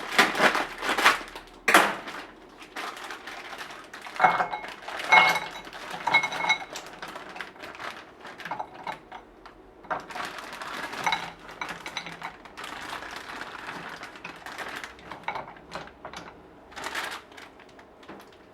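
Pieces of pink chocolate poured from their bag into a microwave-safe bowl, rattling and clicking against it in uneven bursts, with the bowl ringing faintly now and then.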